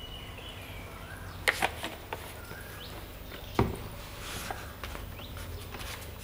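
A few sharp clicks and knocks of handling at the bench as the plastic alcohol squeeze bottle is lifted off the circuit board, the loudest about one and a half seconds in and again about three and a half seconds in. Faint bird chirps and a low steady hum sit underneath.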